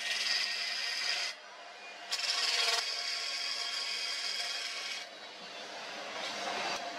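Wood lathe turning a wooden blank while a hand-held turning chisel cuts into it: a scraping cut in two stretches, about a second and then about three seconds, with a short pause between and the cutting easing off near the end. The lathe motor hums steadily underneath.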